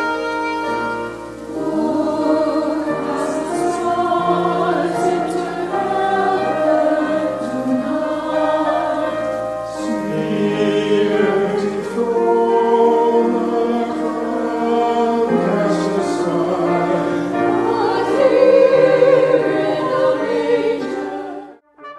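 Choir singing a sacred piece in sustained, overlapping parts. It breaks off abruptly near the end.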